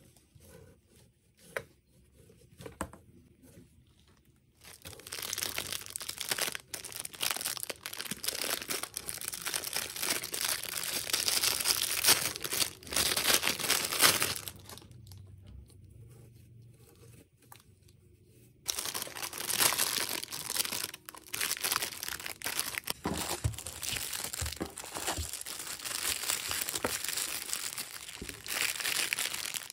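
Thin plastic packaging bags crinkling and tearing open as items are handled and unwrapped. It starts after a few quiet seconds with a few soft clicks, pauses for about four seconds in the middle, then goes on again.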